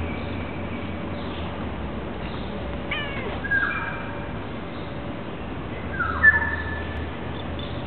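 Cat meowing twice while being stroked: a short falling call about three seconds in, and a louder, higher one about six seconds in.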